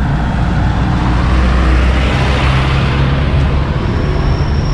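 Road traffic: a motor vehicle's engine running close by, its noise swelling about two seconds in as it passes. A thin, steady high-pitched tone starts near the end.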